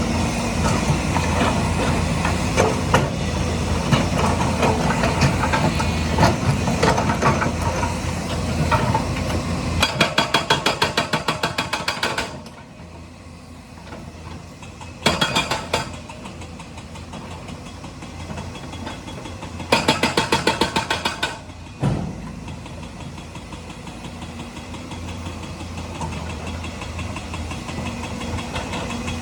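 Heavy diesel engine of construction machinery running, with bursts of rapid, even hammering from a JCB's hydraulic stone breaker: a long burst about ten seconds in and two shorter ones later, the engine quieter between them.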